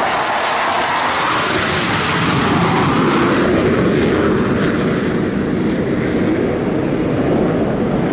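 Blue Angels F/A-18 Hornet jet aircraft passing, a loud roar whose pitch drops over the first few seconds and whose hiss fades as it moves away.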